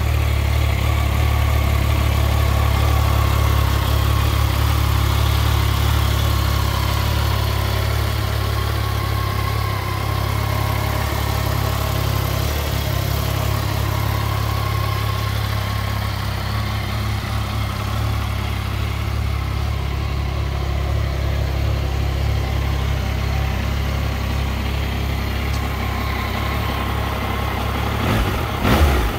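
Yamaha Tracer 900 GT's 847 cc inline three-cylinder engine idling steadily, with a quick blip of the throttle at the very end.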